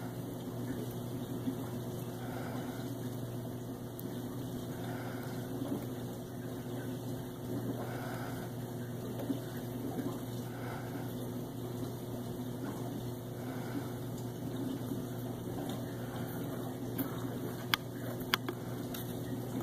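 A steady low mechanical hum, with a few sharp clicks near the end.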